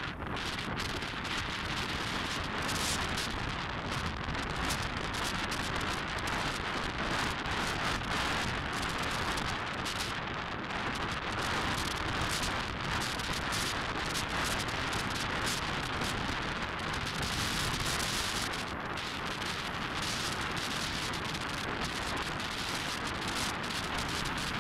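Steady wind rushing and buffeting over the microphone of a moving bike, mixed with road and traffic noise.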